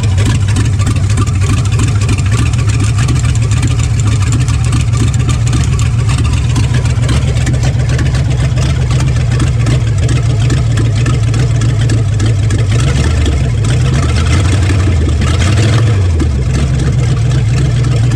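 A 1969 Plymouth Fury's 400 cubic-inch Chrysler big-block V8 idling steadily on its first start after a new oil pan. Its speed dips and briefly rises near the end.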